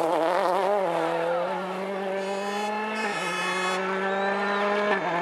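Rally car engine under hard acceleration, its pitch climbing steadily, dipping once about three seconds in as it shifts up a gear, then climbing again.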